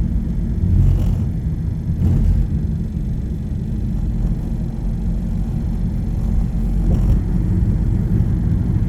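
Steady low rumble of road and engine noise inside a moving car, with a few faint bumps about one, two and seven seconds in.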